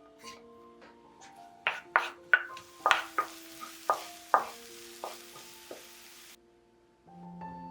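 Chopped onion sizzling in hot olive oil as it is stirred, with a spatula knocking sharply against the pan about nine times, and the sizzle cutting off suddenly near the end. Soft background music with held tones plays underneath.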